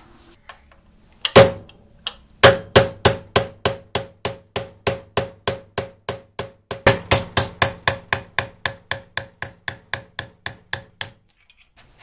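Hammer striking a steel pin punch to drive a tight roll pin out of an aluminium pulley hub: one blow, then a steady run of blows, about four a second, each with a short metallic ring, stopping about a second before the end.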